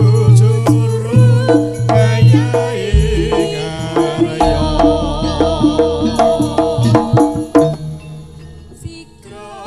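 Javanese jaranan gamelan music: hand-drum strokes over deep sustained gong tones, with a melody that wavers in pitch. The playing thins out and drops in level about eight seconds in.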